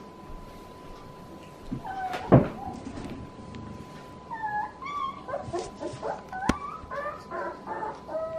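Corgi puppies whimpering and yipping in short, high, bending cries, several a second, from about halfway through. A loud thump comes a couple of seconds in.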